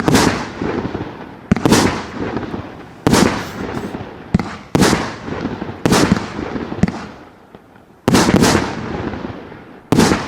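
A 200-shot fireworks cake of 0.8 to 1.2 inch calibre shells firing: loud bangs about every second and a half, each trailing off in a crackling tail, with a brief pause before the last few shots.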